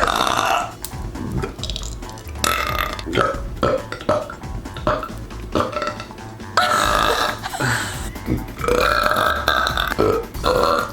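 A man burping over and over: a string of about five loud, drawn-out burps with short pauses between them, the longest lasting over a second.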